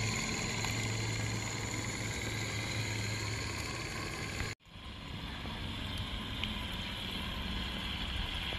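Steady outdoor noise with a low hum for the first few seconds. It breaks off sharply at a cut about four and a half seconds in, then the same even hiss resumes.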